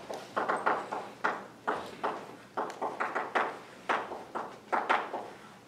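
Chalk writing on a blackboard: a quick, irregular run of sharp taps and short scratchy strokes, stopping shortly before the end.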